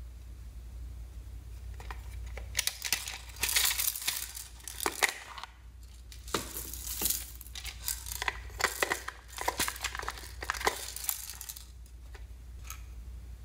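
Slime with plastic beads being pressed and squished by hand: a run of irregular sticky crackles, pops and clicks, starting about two seconds in and thinning out near the end.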